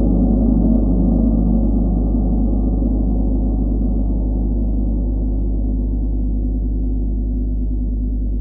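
40-inch chau gong ringing out after a single felt-mallet stroke. A strong low hum under a cluster of higher tones slowly fades, with no new strike.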